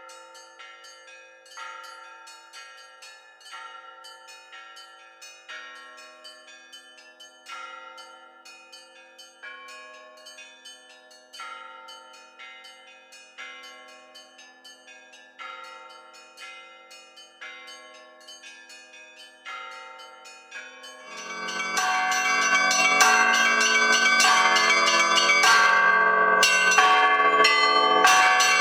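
Russian Orthodox church bells rung by hand in a rhythmic pattern, with a heavier stroke about every two seconds and smaller bells striking in between. About 21 seconds in, the ringing becomes much louder and denser, with many bells sounding together.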